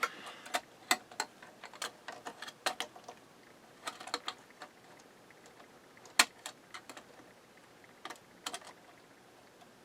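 Irregular light clicks and taps of handling at the amplifier's power switch while it is probed for continuity, with one sharper click about six seconds in; the clicks thin out in the second half.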